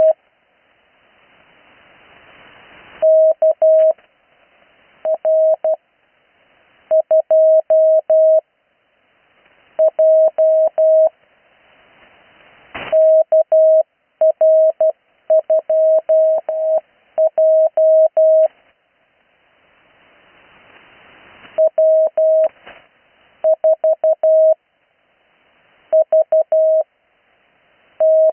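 Morse code (CW) received over the 80 m amateur band: a single steady tone keyed in short and long beeps, sent as quick groups of characters separated by pauses. Radio band hiss rises in the longer pauses, and there is one sharp click near the middle.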